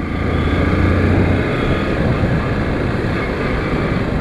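Motorcycle running at road speed, with wind rushing over the microphone. A low engine hum stands out for about the first second and a half, then blends into the wind and road noise.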